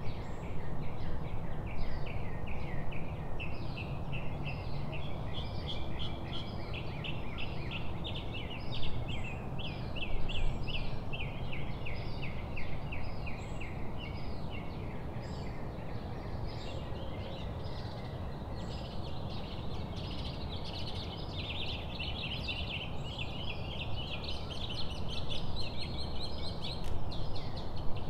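Birds chirping and chattering in a fast, continuous run of short calls, busiest near the end, over a low steady rumble of wind noise.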